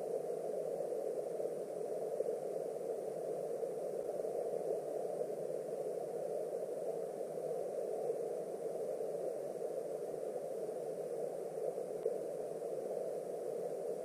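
Flowing stream water heard underwater through a GoPro's waterproof housing: a steady, dull rush with little high sound.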